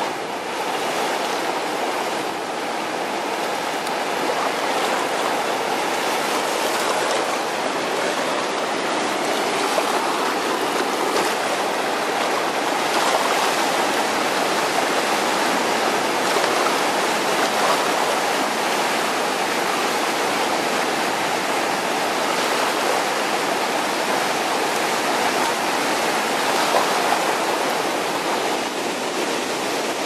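Whitewater of the Montmorency River swollen with spring runoff, rushing over rock ledges and spillways: a steady, unbroken rush of water with no pauses or changes.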